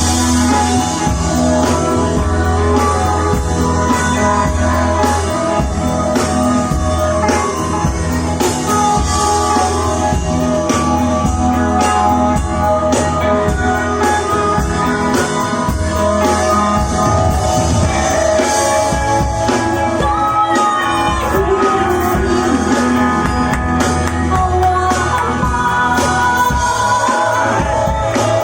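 Live rock band playing a song, a singer's voice over electric guitar, bass and a steady beat.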